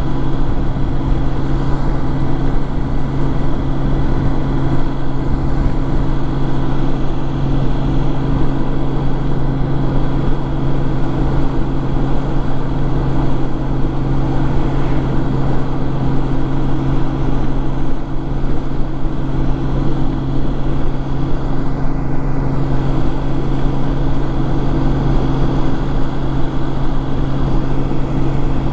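Honda Gold Wing motorcycle running steadily at cruising speed, its engine drone holding one pitch under a constant rush of wind and road noise.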